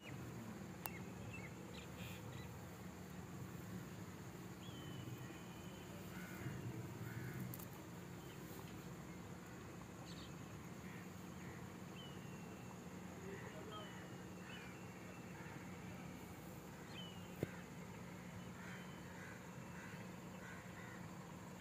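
Faint outdoor ambience: birds calling again and again with short, sometimes falling calls over a steady low hum, with a single sharp click about two-thirds of the way through.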